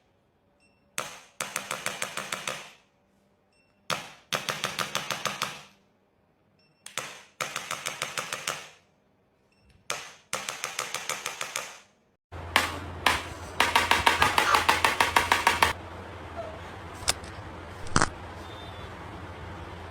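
Handheld chiropractic adjusting instrument firing on the patient's back: five bursts about three seconds apart, each a sharp click followed by a fast rattle of a dozen or more clicks lasting about a second and a half. A low steady hum comes in after about twelve seconds, with a few single clicks near the end.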